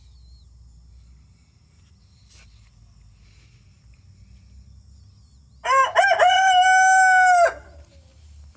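Rhode Island Red rooster crowing once, about two seconds long, coming in more than halfway through: a few quick rising syllables, then one long held final note.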